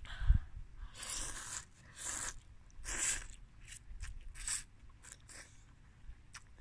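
A person slurping Mama instant noodles off a fork in several short slurps spread through a few seconds, with a low thump just after the start.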